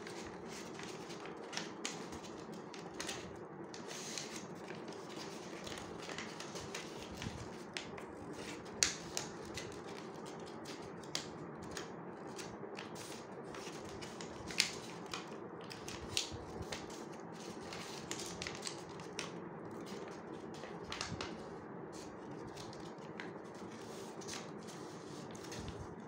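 Origami paper rustling and crinkling as it is folded and pressed into creases by hand, with irregular sharp crackles and taps, over a steady low hum.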